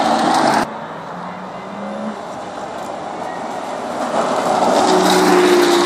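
Sports car engines as the cars drive past one after another: an Aston Martin Vantage passing close cuts off sharply just over half a second in. Then a Porsche convertible's engine approaches and grows louder near the end.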